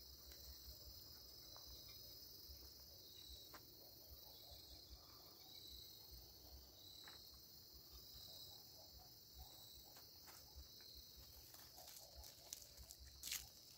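Faint, steady chorus of crickets in a high even band, with a few light knocks near the end.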